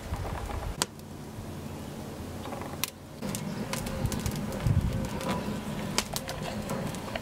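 Fire of dry twigs and brushwood burning in the firebox of a brick wood-fired oven, with a few sharp snaps and a low rumble of flames from about three seconds in. A bird cooing is heard alongside.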